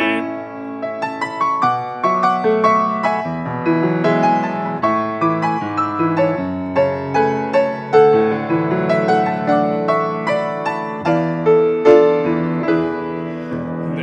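Piano playing the instrumental interlude of a worship song: a run of struck notes over sustained chords, with no singing.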